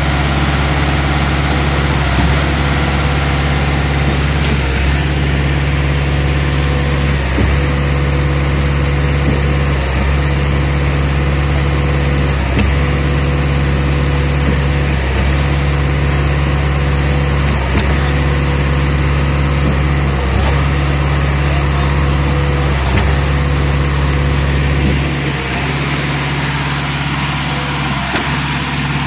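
Diesel engine of a self-loading concrete mixer and concrete pump running steadily while concrete is unloaded into the pump, with a regular knock about every two and a half seconds as the pump changes stroke. About 25 seconds in, the deep part of the engine sound drops away.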